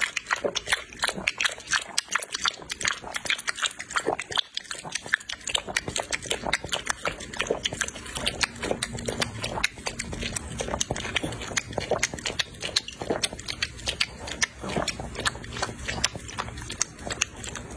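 Dog lapping liquid from a plate: rapid, wet, irregular tongue clicks and slurps.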